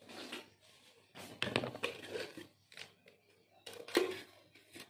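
Hands handling electric motor parts on a workbench: irregular scraping and rustling, then one sharp knock about four seconds in.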